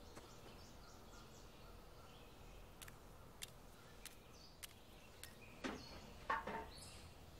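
Quiet outdoor ambience with faint birds chirping and a few soft clicks, then two short louder sounds about six seconds in.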